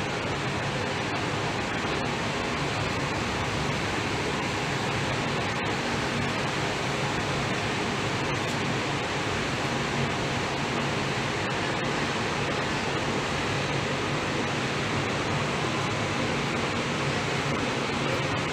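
Steady rushing air-conditioning noise with a faint low hum in a stationary KL Monorail car, its doors open at the platform.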